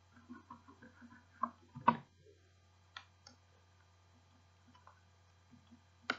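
A handful of separate computer keyboard key clicks, the loudest about two seconds in, as the old folder name is deleted with the backspace key.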